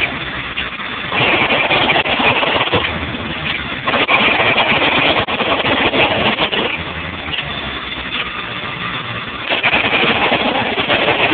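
Jackhammer hammering in runs of a few seconds, with a lower steady running sound in the pauses between runs.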